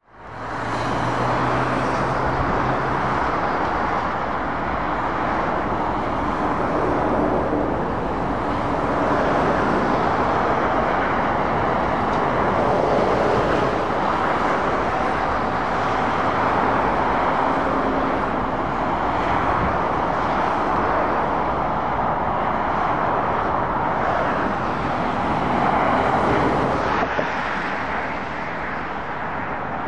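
Steady motorway traffic noise from passing lorries, vans and cars: tyre noise and diesel engines. It fades in at the start, with a low engine hum over the first few seconds.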